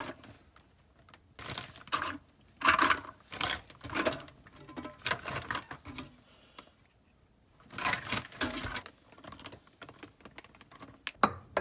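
Scallop shells clacking against each other and a stainless steel bowl as they are handled and packed into a plastic zipper bag. The clatter comes in irregular bursts, with a pause in the middle.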